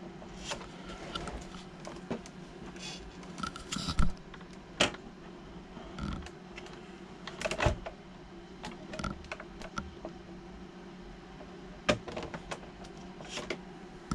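Scattered light clicks, taps and a few sharper knocks of the Redcat 64 Gold Digger RC lowrider being handled, turned over and set down on a workbench, over a steady low hum.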